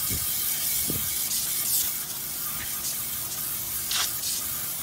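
Water spraying from a garden-hose trigger nozzle onto a wooden board and the wet pavement under it, rinsing the stripper and old stain off the wood: a steady hiss of spray.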